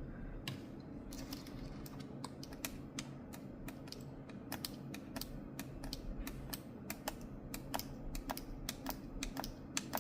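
Computer keyboard keys tapped with very long natural fingernails: an irregular run of light clicks that comes faster from about halfway through.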